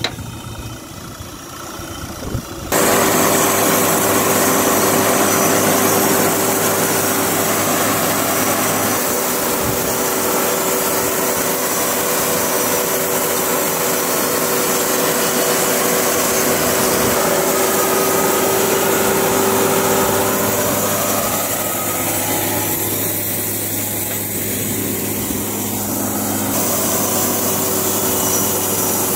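Wood-Mizer LT70 portable band sawmill cutting a teak log lengthwise. The sawmill's engine runs at a lower level at first. About three seconds in, the blade bites into the wood and a loud, steady sawing noise sets in, with a steady whine that fades about twenty seconds in while the cutting noise carries on.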